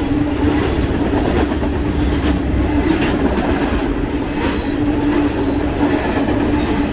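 BNSF freight train's cars rolling past on the rails, with wheel clatter and a low steady whine from the wheels that comes and goes.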